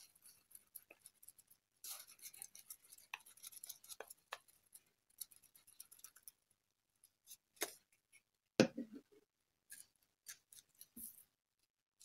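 Glue stick rubbed over the back of a corrugated-cardboard heart: faint, scratchy strokes for several seconds, then a few light knocks on the table.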